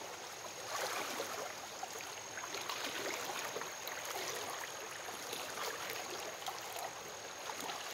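Shallow, rocky creek babbling steadily, with water sloshing around the legs of someone wading slowly upstream through it, a little louder about a second in and again around three seconds.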